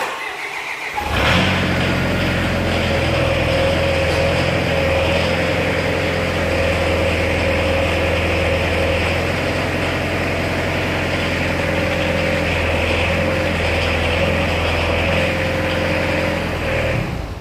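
Spra-Coupe 3430 sprayer's engine running steadily with a steady whine over it, louder from about a second in.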